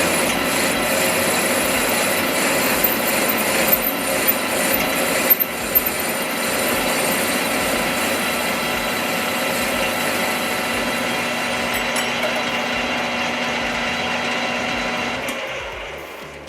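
Metal lathe running while a tool cuts into brass stock for a bushing, a steady grinding and rubbing with a few sharp clicks early on, fading out near the end as the cut finishes.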